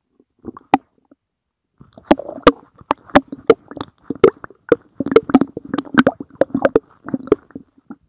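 Stomach growling: wet gurgles broken by sharp pops. A brief gurgle comes about half a second in, then from about two seconds in the gurgling comes thick and fast.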